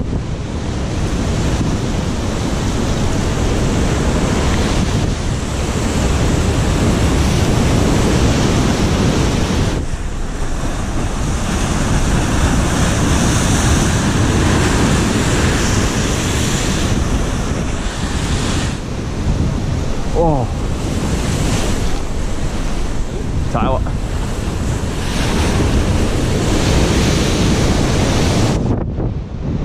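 Rough surf crashing and washing over the concrete blocks of a rock breakwall, with strong wind buffeting the microphone.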